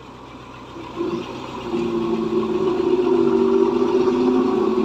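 A motor vehicle engine running at a steady pitch. It starts about a second in and grows louder around two seconds in.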